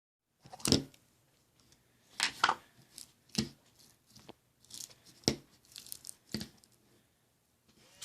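Slime being handled, giving off a series of sharp, irregular pops and crackles, about seven in all, with short quiet gaps between them.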